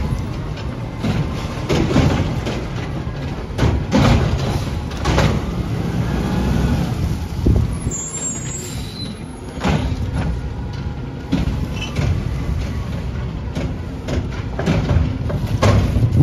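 An automated side-loader recycling truck with a natural-gas (CNG) engine runs steadily while its lifting arm tips a recycling cart into the hopper. Sharp clanks and bangs come every second or two over the engine.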